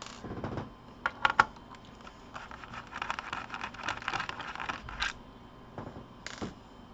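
Screwdriver working the small screws of a Toshiba Satellite laptop's case: a few sharp clicks, then a run of fine rapid scratchy ticking as the screws turn, and another click.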